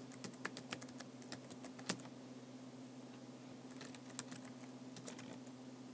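Typing on an iPad's on-screen keyboard: a quick run of soft taps and clicks in the first two seconds, then a sparser cluster around four to five seconds in, over a faint steady hum.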